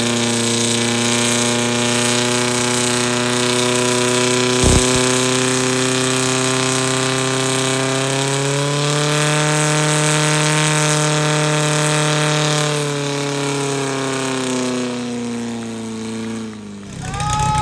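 Portable fire pump's engine running at full throttle under load, pumping water out to the hose lines, with a steady high note. The note rises a little about halfway, then eases and drops away sharply near the end as the throttle is cut. A single sharp knock comes about a quarter of the way in.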